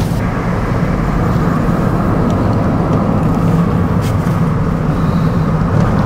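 Steady engine and road noise of a car, heard from inside the moving car.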